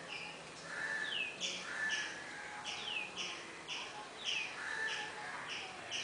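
Birds chirping: many short chirps and quick downward-sweeping notes, repeating several times a second, with a few longer, lower whistles among them.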